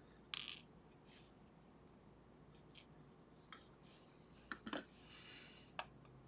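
Small metal clicks and clinks from the plug and pins of a six-pin pin tumbler lock as its key pins are taken out. There is a sharp click just after the start and a few faint ticks, then a cluster of clinks with a brief scraping rattle about four and a half seconds in, and one last click near the end.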